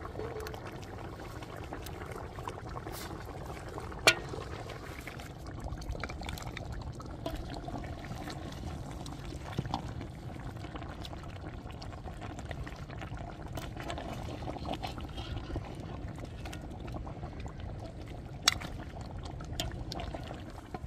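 Liquid bubbling and pouring in a steaming cast-iron cauldron, with two sharp knocks, one about four seconds in and one near the end.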